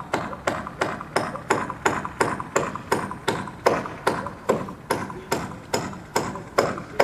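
Steady hammering: about nineteen even blows, roughly two and a half a second, each with a short ringing metallic ping, stopping at the end.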